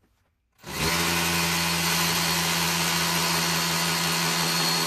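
Cordless hammer drill in hammer mode boring a hole into a concrete-block masonry wall. It starts about half a second in and runs at a steady pitch.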